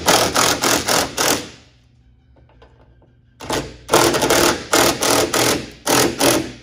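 A power tool running bolts down in two bursts of rapid rattling, about two seconds and three seconds long, with a short pause between them. It is tightening the hood hinge bolts back up.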